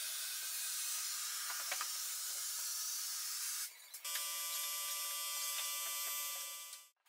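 A steady hiss with nothing deep in it, breaking off briefly a little before four seconds. When it resumes, several faint steady tones sit under the hiss until it cuts off just before the end.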